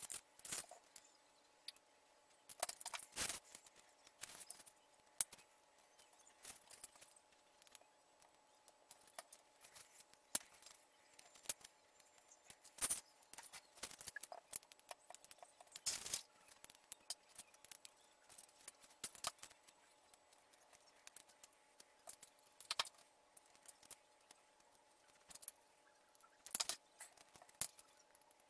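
Scattered light clicks and taps of hand work: rolled paper tubes being picked up, laid on a cardboard disc and pressed down, and a hot glue gun being handled and set down on the cutting mat.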